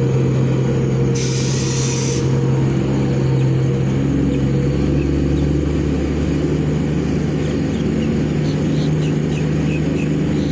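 A motor vehicle's engine running steadily close by, a low, even hum. About a second in comes a short hiss of air.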